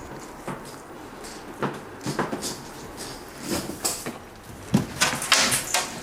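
Irregular rustling and light knocks, thickest about five seconds in.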